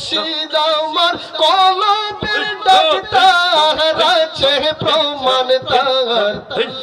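A man singing a Bengali devotional murshidi song, with long held notes and a wavering pitch.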